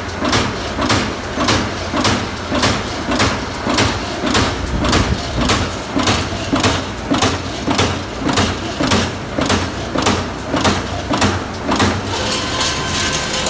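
Amada Pega 357 CNC turret punch hitting sheet metal, a rhythmic train of sharp punch strokes about two a second. The strokes stop near the end, leaving a steady machine hum with a faint whine.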